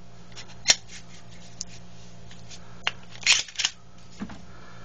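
Glock 17 pistol being handled as its slide goes back on after reassembly: a sharp metallic click about a second in, a small click, then two quick metallic clacks a little over three seconds in.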